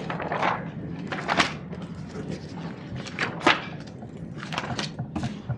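Pencils scribbling and paper rustling on a tabletop: a string of short, irregular scratchy strokes over a steady low room hum.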